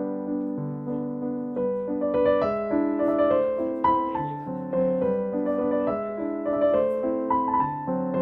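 Background music: a gentle piano piece, with chords shifting about every half second under a melody that grows busier about two seconds in.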